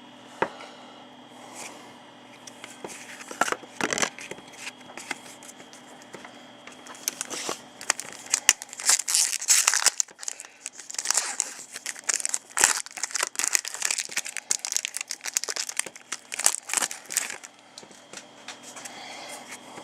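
Plastic trading-card pack wrapper being torn open and crinkled, with scattered clicks at first and dense crackling through most of the second half.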